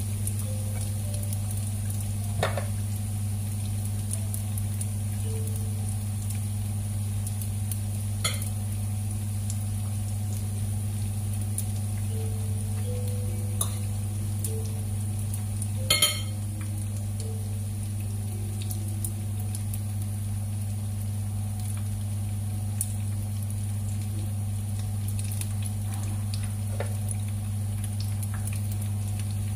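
Dumplings frying in shallow oil in a nonstick pan, a steady sizzle over a low hum, as wooden chopsticks turn them. There are a few sharp clicks of the chopsticks against the pan, the loudest about halfway through.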